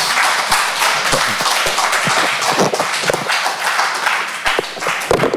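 Audience applauding: a dense patter of many hands clapping that stops abruptly near the end.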